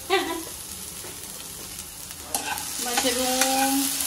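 Mixed vegetables (mushrooms, sweet corn, carrots, green beans) sizzling in a frying pan on a gas stove. From about two seconds in, a spatula scrapes and clicks against the pan as they are stirred.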